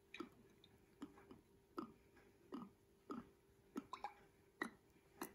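Faint, short glugs about once every three-quarters of a second as olive oil is poured from a small glass bottle over raw pumpkin cubes, each glug dropping in pitch, over a faint steady hum.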